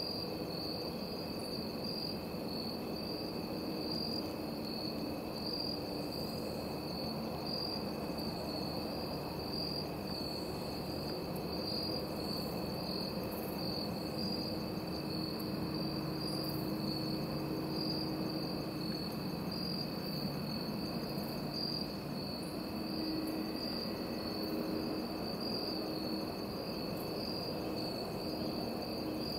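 Evening insect chorus of crickets, a steady high trill that pulses regularly about once a second, with a second steady high note underneath.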